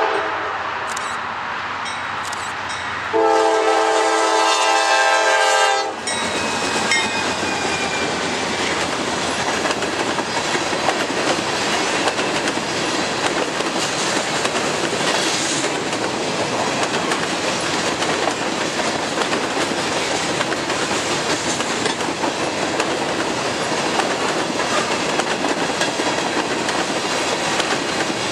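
Freight locomotive's air horn sounds a short blast right at the start and a long blast of about three seconds, a chord of several tones. A freight train of covered hopper cars then rolls steadily past with continuous wheel-on-rail noise.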